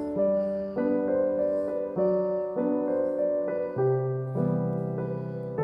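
Background piano music: chords struck one after another at an even pace, each fading before the next.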